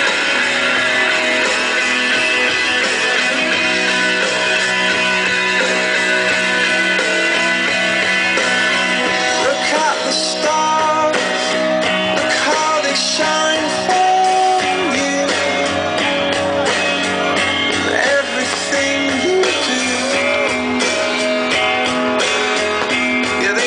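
Rock music with strummed guitar playing loudly and steadily, a voice or lead line bending in pitch from about ten seconds in.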